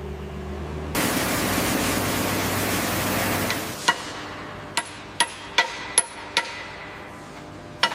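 A sudden burst of loud rushing noise for about three seconds, then a series of evenly spaced hammer blows, about two or three a second, with a high metallic ring after some of them.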